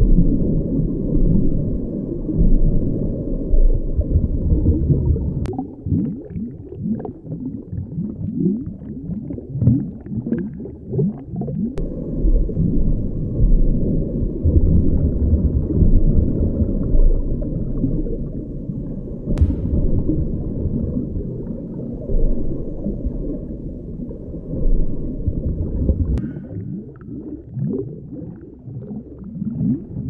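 Underwater ambience: a muffled low rumble of moving water full of bubbling and gurgling, with a few short clicks.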